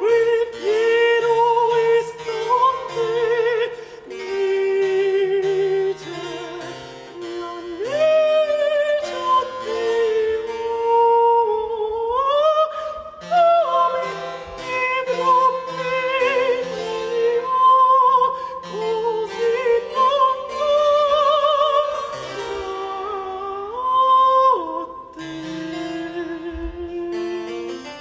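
Baroque opera aria: a high voice sings long held notes with vibrato, sliding between pitches, over harpsichord accompaniment.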